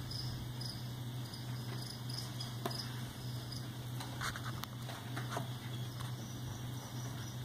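Steady low hum with faint, short high-pitched chirps repeating in the background, and a few soft clicks.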